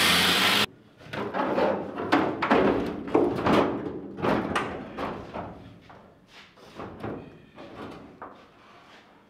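Angle grinder cutting the sheet steel of a 1971 Chevy pickup bed, stopping abruptly under a second in. Then a run of irregular knocks and thuds on the bed's sheet metal, loudest about two to four seconds in and fading toward the end.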